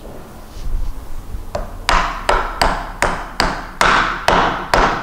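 A series of about nine sharp wooden knocks, roughly two to three a second, starting about one and a half seconds in, as two dowelled boards are knocked together to close a dowelled butt (widening) joint.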